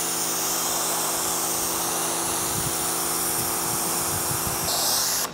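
Pressure washer running, its 15-degree nozzle blasting a high-pressure water jet onto concrete and stripping off the top layer of grime. A steady spray hiss over the pump motor's hum, cutting off abruptly near the end as the trigger is released.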